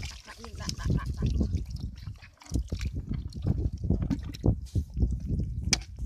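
Muddy water dripping from a plastic basket of freshly caught fish. The basket then knocks and scrapes against a metal pot as the catch is tipped in, with a sharp knock near the end.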